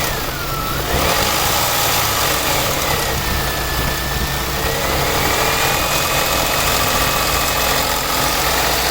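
2000 Nissan Maxima's V6 engine running warm with the AC compressor engaged, making a grinding knock from the engine bay, with a faint whine that slides down and up in pitch. The grinding gets louder with the compressor on; the owner suspects a bad pulley or possibly the timing chain.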